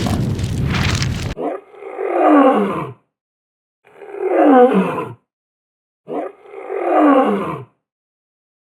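A large animal roaring three times, each roar about a second and a half long and falling in pitch. Before the roars, a dense, rough noise cuts off suddenly about a second in.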